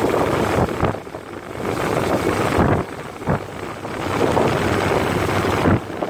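Nissan 3.3-litre V6 idling rough and unevenly, up close in the engine bay. The roughness is a random misfire in cylinder 2.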